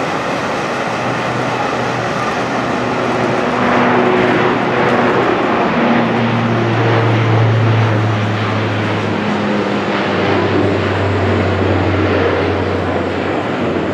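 Luxair Bombardier Q400 turboprop at takeoff power as it lifts off and climbs away: a steady, low propeller drone from its Pratt & Whitney PW150A engines and six-blade propellers over a rushing engine noise. It is loudest midway and dips slightly in pitch toward the end.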